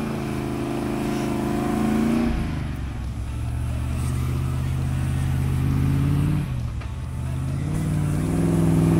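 Land Rover Discovery engine pulling the 4x4 forward through deep snow, its revs changing as the driver works the throttle: the note drops about two seconds in and climbs again near the end.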